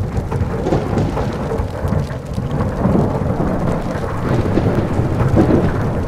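Thunderstorm sound effect: continuous low rumbling thunder with a crackling, rain-like hiss over it.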